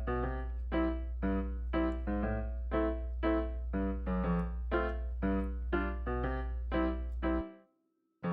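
Background music: a keyboard tune of evenly spaced notes, about three a second, over a steady low tone. It stops suddenly about seven and a half seconds in.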